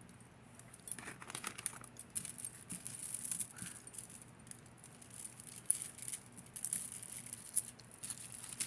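Small pieces of costume jewelry clicking and rattling against one another as they are picked through and handled: many small irregular clinks and light rattles.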